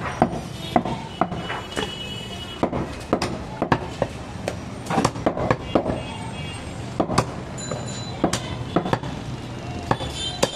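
Butcher's knife chopping goat meat on a wooden tree-stump block: irregular sharp chops, roughly one or two a second, over a steady low hum.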